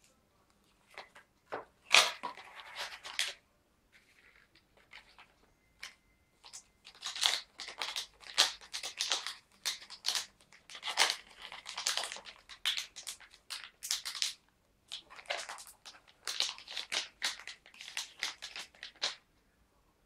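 A cardboard SSD retail box and its packaging being handled: irregular rustling, scraping and crinkling as the box is opened and its paper inserts and bagged drive are taken out, with a quiet pause about four seconds in.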